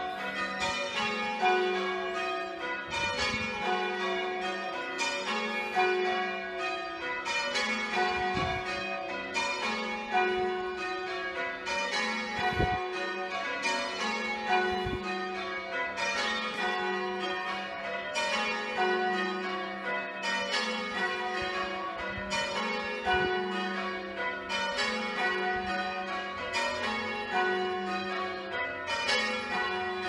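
A ring of six church bells, tenor 13 cwt in F#, rung full circle, one bell after another in a steady, even rhythm, heard from outside the tower. The front three are John Rudhall bells of 1810 and the back three Mears and Stainbank bells of 1961.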